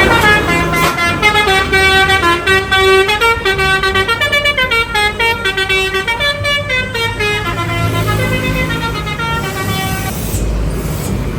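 Telolet bus horn, a Basuri-type multi-tone air horn, playing a quick melody of stepping notes for about ten seconds. A low engine rumble takes over near the end.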